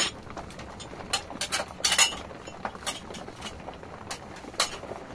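Metal bowls and dishes clinking and knocking against each other in a plastic washbasin as they are handled, a string of sharp irregular clinks with the loudest about two seconds in.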